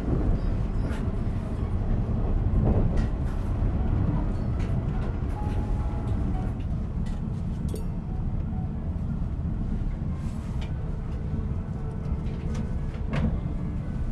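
Steady low rumble of the Twilight Express sleeper train running, heard from inside its dining car, with a few faint clicks and knocks.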